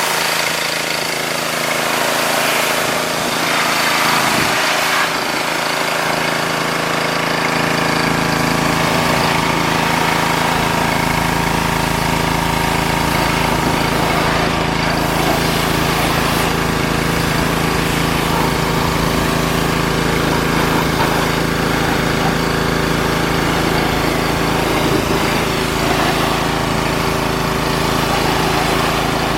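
Pressure washer running steadily with a steady mechanical drone; its low end grows fuller about seven seconds in.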